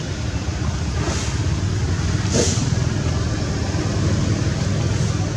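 A steady low rumble with a hiss over it, and two brief louder hissing swells a little over a second apart in the first half.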